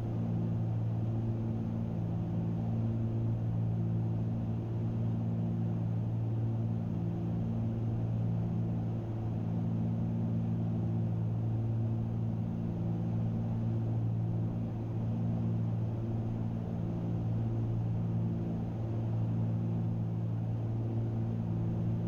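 Cabin drone of a Cessna 310Q's two piston engines and propellers in cruise flight: a steady low hum whose upper tones swell and fade every few seconds as the two propellers beat against each other.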